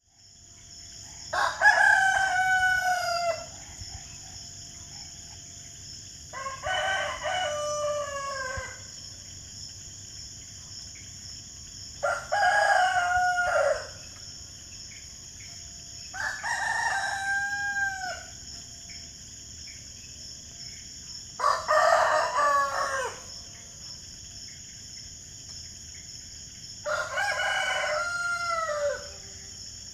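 Rooster crowing cock-a-doodle-doo six times, about every five seconds, each crow lasting around two seconds and falling in pitch at the end, over a steady high-pitched background hiss.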